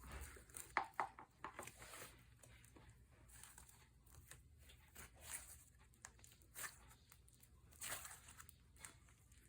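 Slime being stretched and squeezed by hand, giving faint, irregular sticky crackles and small pops, with a cluster of sharper ones in the first two seconds and another around eight seconds in.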